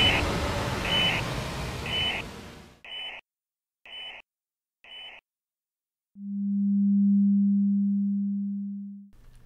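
Electronic outro sound: a rumbling music bed fades out under short high beeps, one about every second, six in all. After a brief gap comes a long, low, steady tone of about three seconds that swells and slowly fades away.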